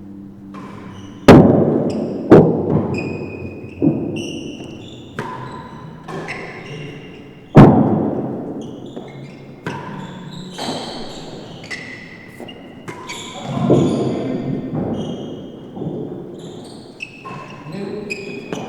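Real tennis rally: sharp cracks of the solid ball off rackets, walls and floor, echoing around the indoor court. The loudest hits come about a second in and again near eight seconds. Short high squeaks sound between the hits.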